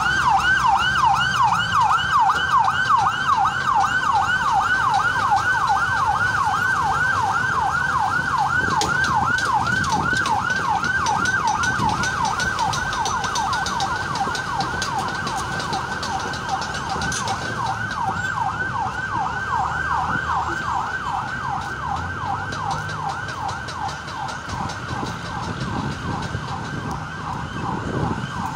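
Emergency vehicle siren in a fast yelp, its pitch sweeping up and down several times a second and slowly fading, over the low rumble of road traffic.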